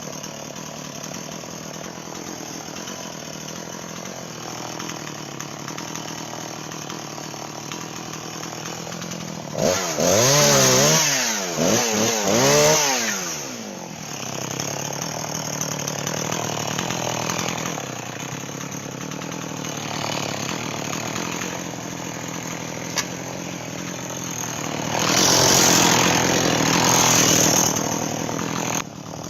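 Two-stroke chainsaw running at a steady idle, revved up to a loud high pitch about ten seconds in and again near the end, with the pitch rising and falling as the throttle is worked, as when cutting branches.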